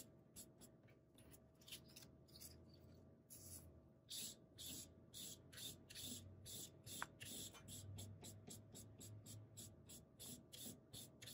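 Felt-tip marker being scribbled quickly back and forth on a paper strip to colour it in solid black: a steady run of short scratchy strokes, about three a second.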